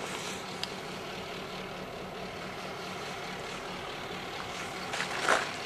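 EMD F-unit diesel locomotives running steadily as they pull a freight train of hopper cars slowly toward the listener, a constant engine drone with a low hum. A brief louder burst of noise comes near the end.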